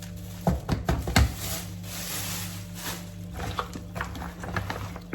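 Kitchen cooking sounds: a quick run of sharp knocks about half a second in, then a hiss and a scatter of lighter clicks, over a steady low hum.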